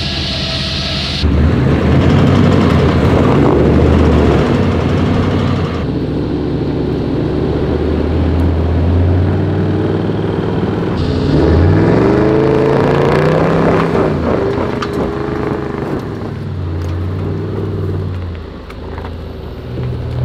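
Four-wheel-drive vehicle engines working on a steep rutted dirt track, revs rising and falling, with a clear climb in revs about eleven to thirteen seconds in. The sound changes abruptly a second in, and again about six and eleven seconds in, as one vehicle gives way to the next.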